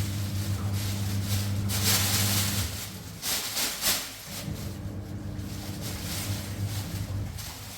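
A machine's steady low hum. It stops about two and a half seconds in, starts again about four seconds in and cuts off near the end. Loud hissing rushes come around two and four seconds in.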